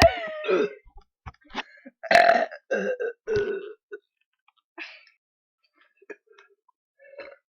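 A person burping: a loud belch whose pitch falls right at the start, then more loud throaty sounds about two to four seconds in, with only faint scattered sounds after.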